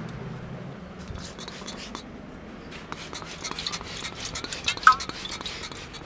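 Hand-held trigger spray bottle squirting onto hair in a quick run of short, hissy spurts. A short high squeak stands out about five seconds in.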